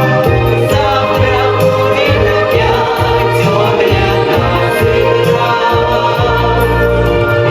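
A song from a stage musical: voices singing over an instrumental accompaniment with a moving bass line.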